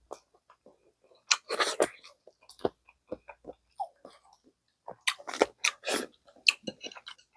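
Close-miked eating of gamjatang: wet chewing and biting in two bunches of crackly clicks, one about a second and a half in and a longer one from about five seconds to nearly seven, with quiet gaps between.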